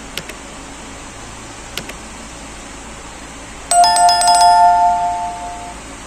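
Steady airflow hiss from a hot air rework gun, overlaid by a subscribe-button sound effect: two pairs of mouse clicks, then a loud notification bell chime with two clear tones about four seconds in, ringing for about two seconds as it fades.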